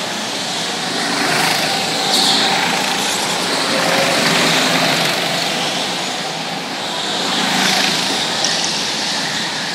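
Small go-kart engines buzzing as several karts lap a large indoor track, the sound swelling and fading as karts come closer and pull away.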